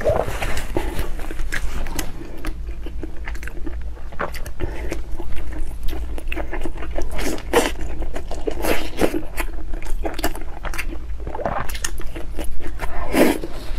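Close-miked eating: a person biting and chewing food, with irregular wet mouth clicks and crunches, over a steady low hum.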